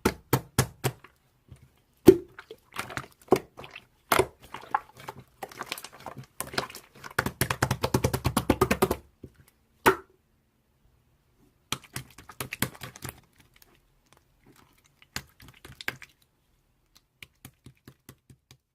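Slime being squeezed and poked by hand: sticky clicks and small pops, with a dense run of crackling about seven seconds in, then sparser clicks.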